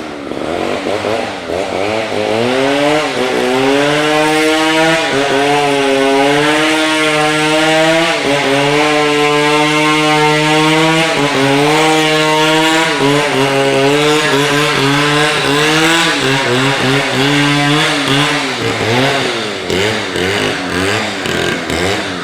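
Chainsaw running at high revs while cutting a fallen tree, its engine pitch dipping briefly now and then under load and recovering, then easing off near the end.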